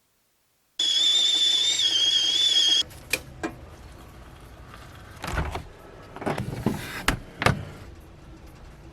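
A loud, shrill whistle held for about two seconds with a slight waver in pitch, cut off abruptly, followed by scattered quieter knocks and clunks.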